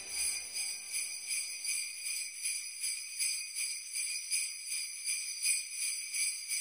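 Sleigh bells jingling, shaken in an even, quick rhythm with nothing else beneath them after the lower backing music dies away in the first half second.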